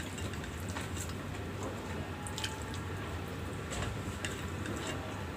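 Close-miked chewing: soft wet mouth sounds and small clicks, over a steady low hum.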